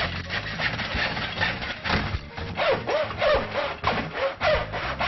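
Hand miter saw cutting through pine framing timber in repeated back-and-forth strokes.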